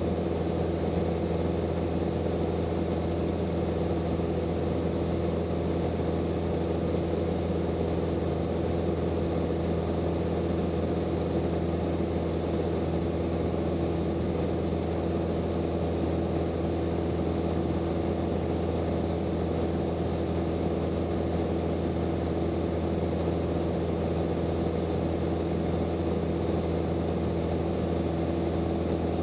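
Steady cabin drone of a Grumman AA-5B Tiger in level cruise: its four-cylinder Lycoming O-360 engine and propeller running at constant power, an even hum with no change in pitch.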